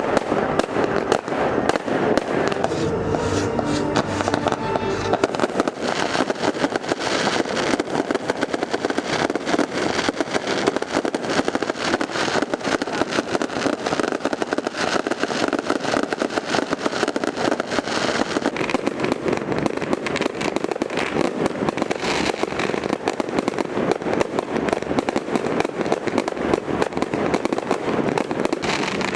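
Aerial fireworks crackling in a dense, continuous barrage of rapid pops, with no pause.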